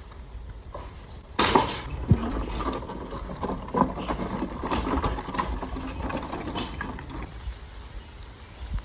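A sharp knock, then about six seconds of rapid mechanical rattling that stops abruptly near the end.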